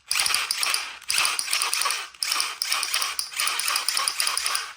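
Toy gun firing in rapid rattling bursts: three long runs of fast clicks with short breaks about one and two seconds in.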